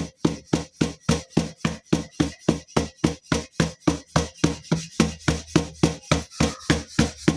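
Palms patting jowar (sorghum) bhakri dough flat on a flour-dusted parat: a fast, even slapping rhythm of about five pats a second.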